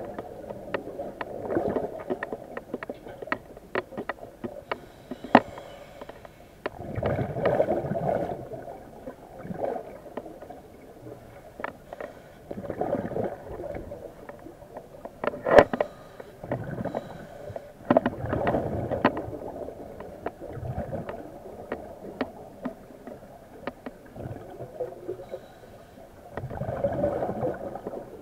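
Underwater sound of a diver breathing on an IDA-59M oxygen rebreather: surges of gurgling, rumbling noise come every few seconds, with scattered sharp clicks throughout.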